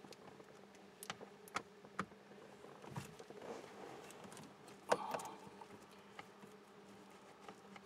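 Faint, scattered clicks and light taps of a hand tool working the two Torx screws that hold the driver's airbag to the steering wheel, a handful of separate clicks rather than a steady run.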